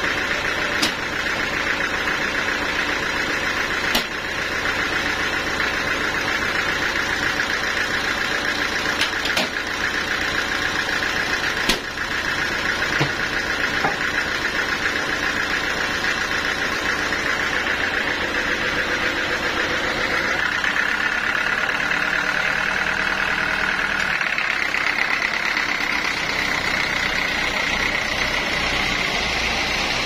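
Band sawmill machinery running with a steady mechanical drone, with a few sharp knocks from the log clamps and the timber on the carriage. About two-thirds of the way through, the drone shifts slightly higher in pitch.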